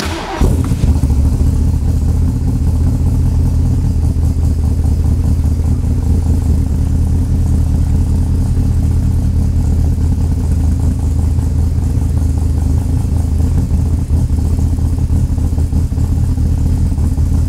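A cold 427 Ford big-block V8 with a four-barrel carburetor fires up almost at once and settles into a steady, even fast idle, held up by the electric choke's high-idle setting.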